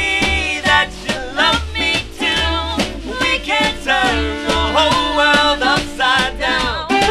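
Small swing band playing an instrumental break, with a saxophone carrying a gliding, bending melody over plucked upright bass, strummed ukulele and snare drum.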